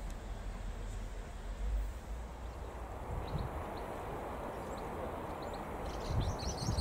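InterCity 125 train approaching: a low rumble that grows louder from about halfway through, with a cluster of short, high squeaks near the end.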